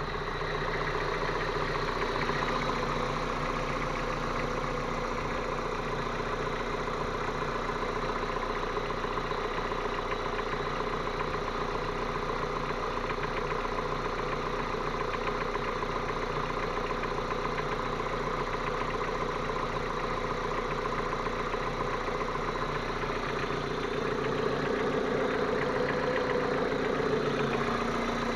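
Geely Emgrand EC7's 1.8-litre petrol engine idling steadily with a knock from inside the engine, the fault the video is recording. It runs a little louder for the last few seconds.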